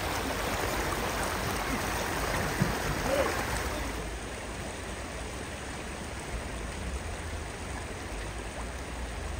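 Steady rushing of floodwater flowing through a street. It drops slightly in level about four seconds in.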